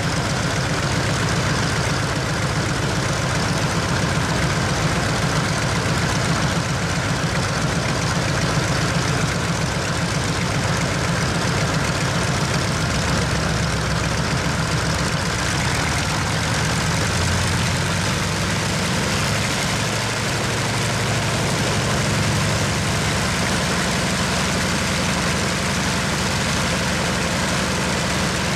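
A6M5 Zero fighter's Nakajima Sakae 21 fourteen-cylinder twin-row radial engine running steadily at idle during a ground run, with the propeller turning.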